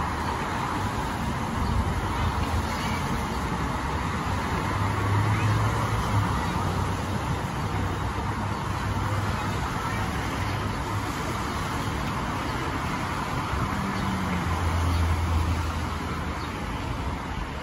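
Steady freeway traffic on a rain-wet road: a continuous hiss of tyres, with the low engine hum of heavier passing vehicles swelling twice, about five seconds in and again near the end.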